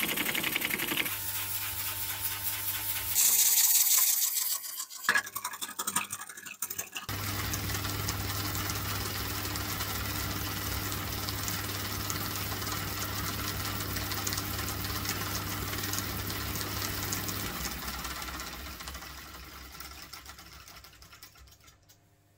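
Small model oscillating engines running in a string of short clips: a steady hum with hissing and rapid clatter that change abruptly several times in the first seven seconds. A longer run follows, then the sound fades away over the last few seconds as the engine winds down.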